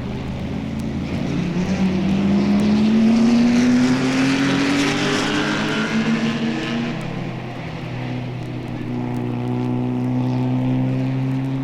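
Racing car engines: one rises steadily in pitch and grows louder over the first few seconds as it accelerates, then fades, while other engines keep running underneath.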